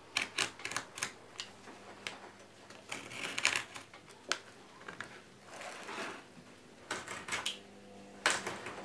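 A snap-off craft knife cutting thin wood for a matchstick model: a run of sharp, irregular clicks and short scrapes as the blade bites and drags through the wood, with a louder cluster near the end.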